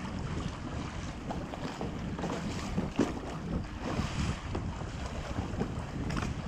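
Wind buffeting the microphone over choppy sea water lapping and splashing against a kayak, with a few short splashes.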